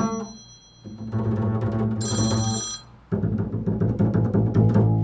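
Telephone ringing in repeated buzzy rings of about two seconds each, with short gaps between them, three in all.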